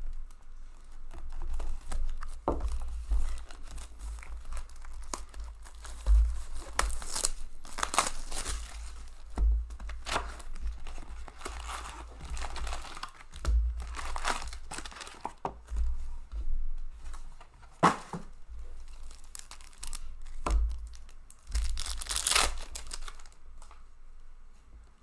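Wrappers of 2014-15 Upper Deck Series 1 hockey card packs being torn open and crinkled by hand, in short irregular rasps, with dull handling bumps.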